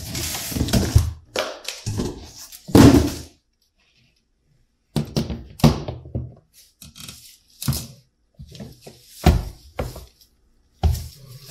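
Unboxing handling noises: cardboard rustling, then a series of thunks and knocks as the plastic charger unit and its heavy coiled charging cable are handled and set down on a wooden workbench. The loudest thunk comes about three seconds in.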